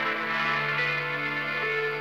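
Instrumental music from a symphonic poem: slow, sustained held chords, with a low note entering at the start and the harmony shifting about two thirds of the way through.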